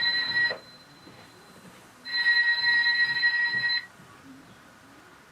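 Electronic ringer of a modified toy telephone ringing in steady bursts, set off by its microwave motion sensor picking up movement. One ring ends about half a second in, and a second ring of just under two seconds starts about two seconds in.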